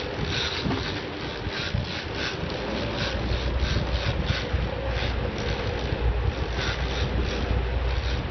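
Fishing boat's engine running with wind buffeting the microphone; the low rumble grows louder about three seconds in, with irregular short hissing gusts over it.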